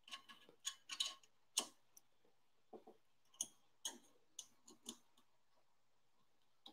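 Faint, irregular light clicks and ticks of a screw and small parts being handled and put in by hand while assembling a Creality Ender-6 3D printer frame; the clicks stop about five seconds in.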